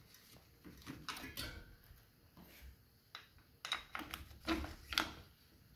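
Irregular light clicks and knocks from handling a bicycle wheel and its parts, a few with a brief metallic ring.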